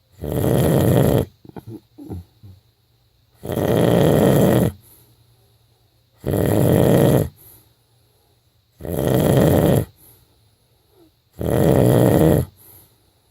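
A person snoring in deep sleep: five loud snores, about one every two and a half seconds, with a few short faint snuffles after the first.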